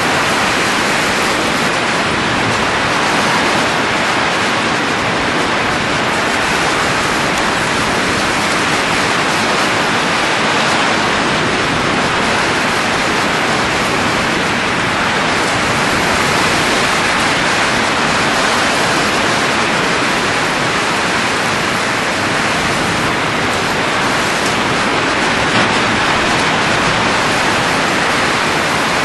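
A steady, even rushing hiss of blowing air, with no gusts, breaks or distinct events.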